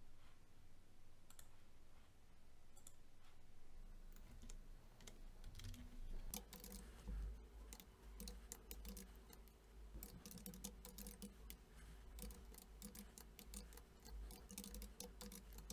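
Faint computer keyboard typing: a few scattered key clicks, then a quick, dense run of clicks from about four seconds in, over a faint low hum.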